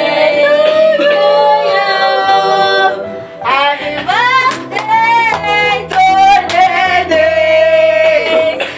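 Background music: a sung song with long held vocal notes over a steady instrumental backing.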